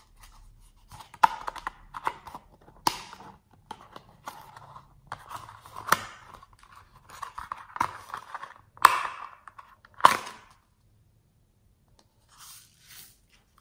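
A hard plastic toy case handled and pressed against fluffy slime heaped with sequins and beads: irregular crackling, crunching and clicking, with a handful of loud sharp snaps. It goes almost quiet about three seconds before the end.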